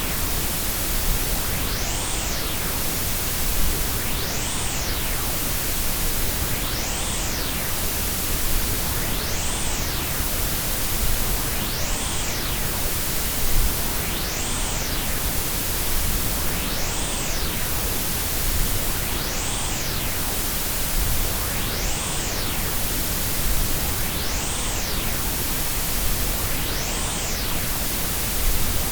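Steady mix of white, pink and Brownian noise: a full, even hiss with a deep rumble underneath. A faint whooshing sweep rises and falls in the treble about every two and a half seconds.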